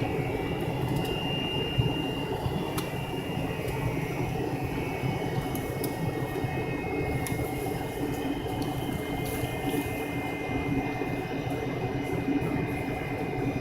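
Inside the cabin of an MD-83 airliner, the rear-mounted Pratt & Whitney JT8D engines run steadily at low power, with a faint high whine over a constant rumble from the airframe.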